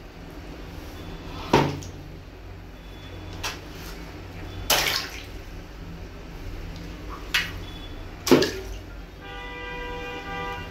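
Water balloons bursting one after another in a tub of water: about five sharp pops, each followed by a brief splash. A short pitched hum sounds near the end.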